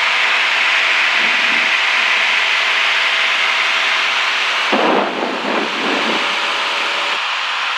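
Cessna 172's engine and propeller droning steadily in cruise, with rushing wind noise heard inside the cabin. A brief rustle about five seconds in.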